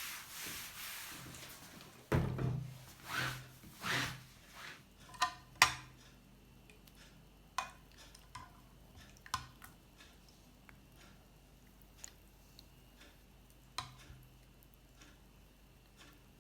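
Rustling and handling noise, then a run of knocks and clatters of objects being moved, followed by scattered single clicks.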